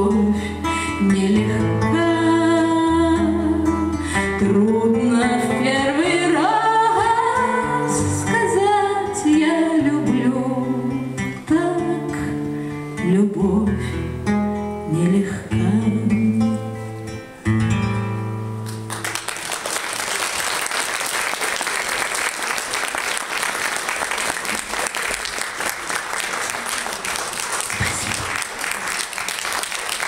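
Acoustic guitar and a woman's voice performing the closing bars of a song, stopping about two-thirds of the way through; then audience applause that goes on steadily.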